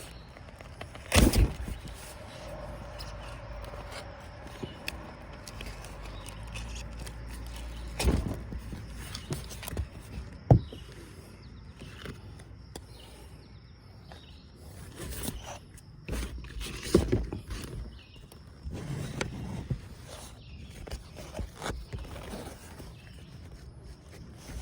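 Scattered sharp knocks and scrapes with footsteps, of someone moving about and handling things while working. The loudest knocks fall about a second in, about eight and ten seconds in, and again near seventeen seconds.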